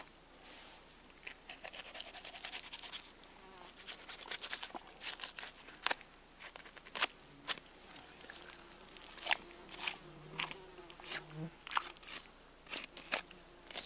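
Knife cutting neck meat off an elk carcass, the meat being pulled away by hand: irregular crackling, scraping and clicking, with quick runs of fast ticks early on and sharper single snaps later.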